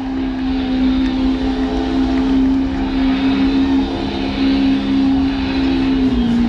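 Pickup truck engine held at steady high revs during a burnout, a constant drone that steps down slightly in pitch near the end.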